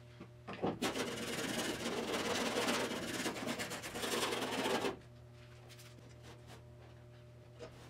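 A rag scrubbed back and forth by hand over the sheet-metal underside of a car body, wiping off black undercoating and tar residue. It is a rough, scratchy rubbing that stops about five seconds in, leaving a low steady hum.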